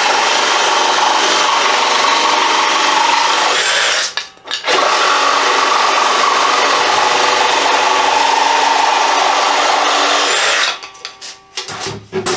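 Craftsman 20V brushless cordless reciprocating saw cutting through a wooden board on speed setting one, its highest speed. The saw runs steadily, pauses for about half a second around four seconds in, resumes, then stops about ten and a half seconds in, followed by a few light knocks.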